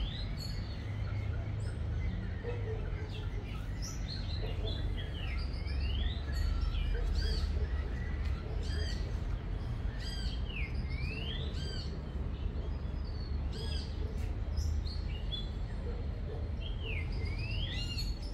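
Birds calling: whistled calls that dip and then sweep upward, mixed with short arched chirps, repeated every few seconds over a steady low rumble.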